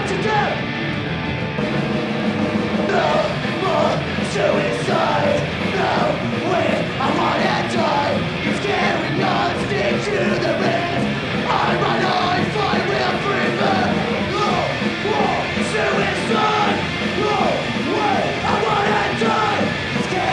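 Punk rock band playing live at full volume, with shouted vocals over the band.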